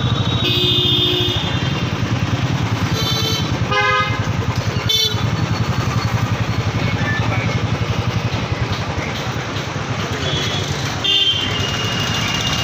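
Motorcycle engine running at low speed with a steady pulsing exhaust beat, amid traffic with several short vehicle horn toots.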